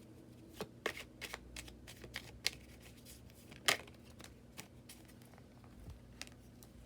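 Tarot cards being shuffled and drawn: a run of irregular soft flicks and snaps of card stock, the sharpest about three and a half seconds in.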